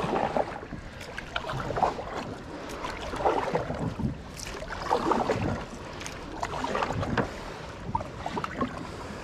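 Water splashing and sloshing around a kayak in uneven surges every one to two seconds, with wind buffeting the microphone.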